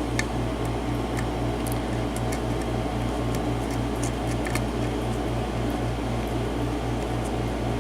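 Steady mechanical hum, like a fan or air conditioner, with a low drone throbbing about five times a second. Faint, scattered small clicks come from a lock pick and tension wrench working the pin stacks of a mortise lock cylinder.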